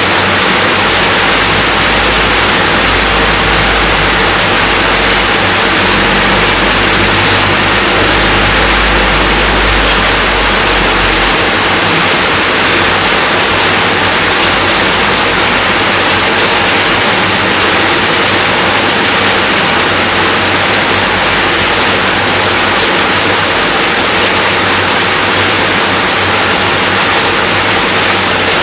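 Steady rainfall, an even, unbroken hiss. A low rumble underneath stops about eleven seconds in.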